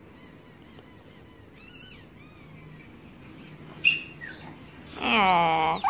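A rubber squeaky dog toy squeezed, giving a short high squeak and then a second brief squeak that falls in pitch, about two-thirds of the way in.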